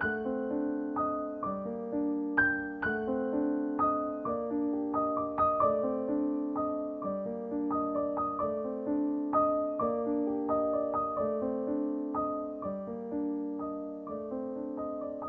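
Background piano music: a melody of struck notes over lower chords, each note ringing and fading after it is played.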